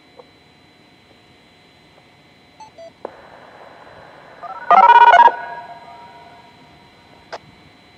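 A short, loud electronic beep of several pitches at once, lasting about half a second, a little after halfway. A sharp click comes a couple of seconds before it and another near the end.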